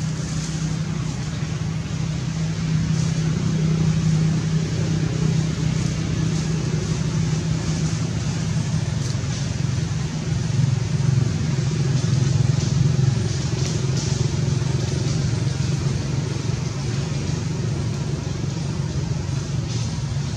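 Steady low engine rumble, like a motor vehicle running close by, swelling a little twice.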